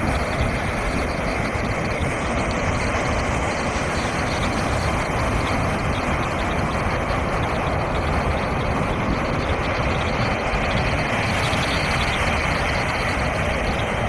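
Loud, steady rush of a large waterfall, an unbroken wash of noise.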